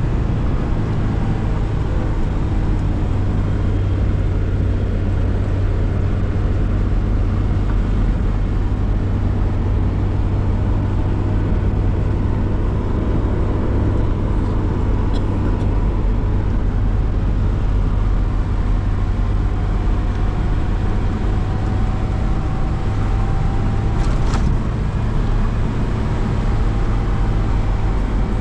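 Steady low drone of a motor vehicle on the move, its engine and road noise running without a break, with a single brief click about three-quarters of the way through.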